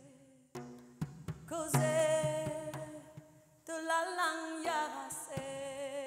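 A voice singing long, held notes with a wavering pitch, in a slow, mostly unaccompanied vocal line.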